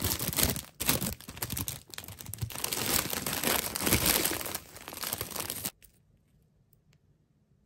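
Clear plastic candy bag of sugared gummies crinkling and rustling loudly as it is handled and tipped out. The crinkling stops suddenly about three-quarters of the way through.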